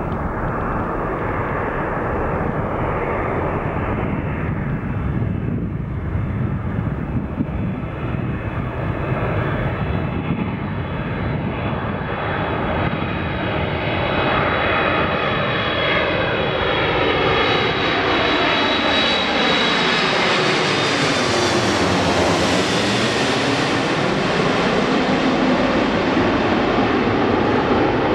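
Airbus A330-300 airliner on final approach with gear down, its twin turbofan engines growing steadily louder as it comes in low and passes overhead. The jet noise takes on a sweeping, phasing tone that falls and then rises again as the aircraft goes over, brightest at the overhead moment.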